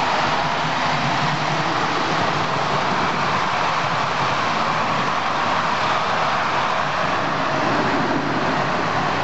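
Model train of Irish Rail Mk 4 coaches running past on the layout's track: a steady running noise of wheels on rail and motor.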